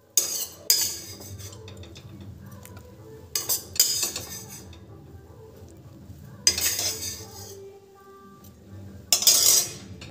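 A spoon mixing chopped tomato, onion and capsicum in a stainless steel bowl. It scrapes and clinks against the metal in four bouts of about a second each.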